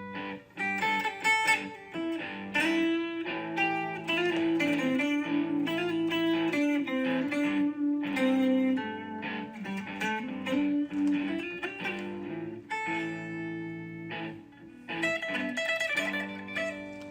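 Background music: a melody played on plucked guitar.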